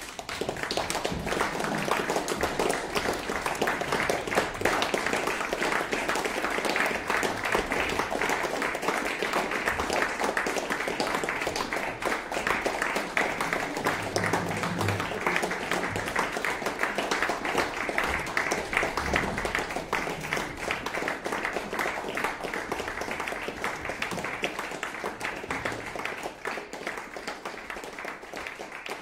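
Audience applauding, breaking out suddenly and continuing steadily, thinning a little near the end.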